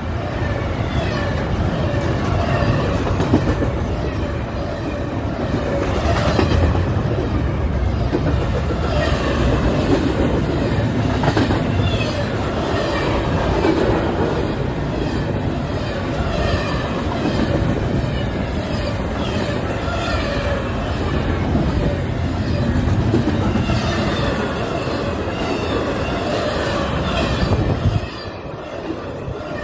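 Double-stack intermodal freight train rolling past, its wheels clattering steadily over the rail joints with a dense run of clicks. The noise drops off sharply near the end.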